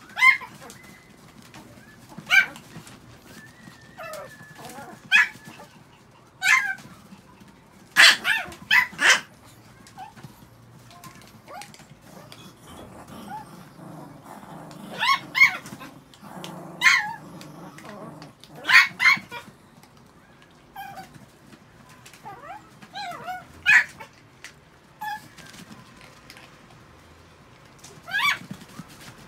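Chihuahuas giving short, high-pitched barks and yips here and there, about a dozen in all, some coming in quick pairs and threes.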